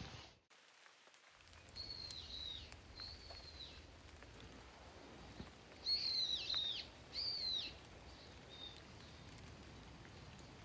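A songbird calling: about five short whistled notes, each arching up and then dropping away, coming in two pairs with a last faint one near the end. Behind them is a faint steady outdoor hiss.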